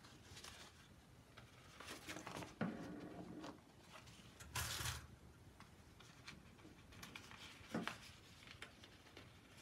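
Faint rustling of cut paper being handled as paper puppet legs are fitted onto brass paper fasteners, with a louder rustle about five seconds in and a couple of soft clicks.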